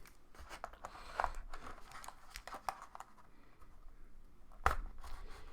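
Packaging rustling and crinkling, with many small clicks, as a new SSD drive is taken out of its box. One sharper click comes near the end.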